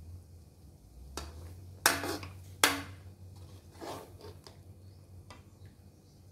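Kitchen utensils and dishes clinking and knocking, with a handful of sharp strikes, the two loudest about two and nearly three seconds in, over a low steady hum.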